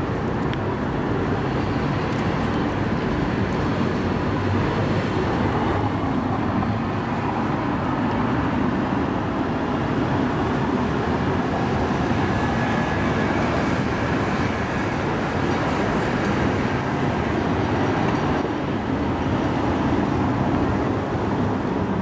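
Steady city traffic noise, a constant low rumble of passing vehicles with no clear events standing out.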